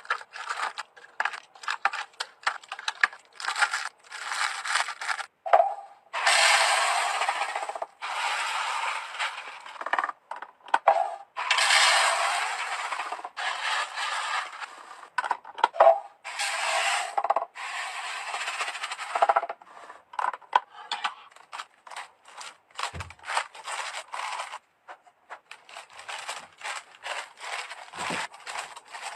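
Plastic containers and food packages being handled and set down: rapid clicks and clatters, with several stretches of a second or two of rustling, scraping noise.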